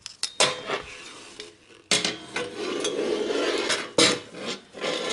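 Steel ruler and steel bicycle frame being handled: clinking, scraping and clattering, with sharp knocks about two seconds in and again about four seconds in.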